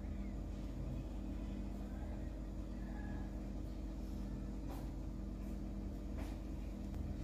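A steady low background hum, with two faint ticks in the second half.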